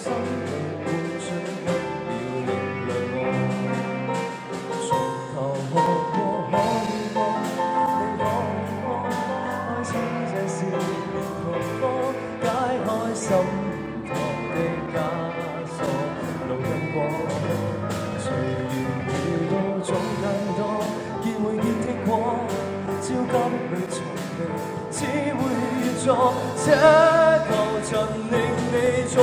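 Live rock band: a male singer over electric guitar, bass guitar and a drum kit, with regular drum and cymbal hits. The band gets louder near the end.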